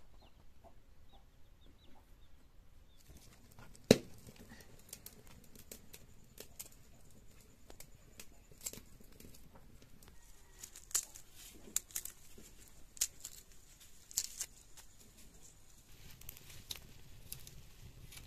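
Chickens clucking in the background, with scattered sharp clicks and crackles; one click about four seconds in is much louder than the rest.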